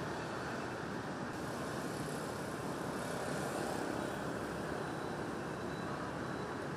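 Steady city street traffic noise from motorbikes and cars.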